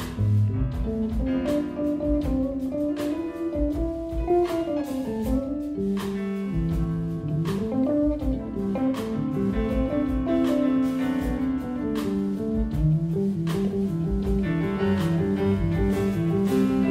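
Live jazz combo playing: an electric bass carries a moving melodic line with slides, over a drum kit keeping time on cymbals and drums, with keyboard.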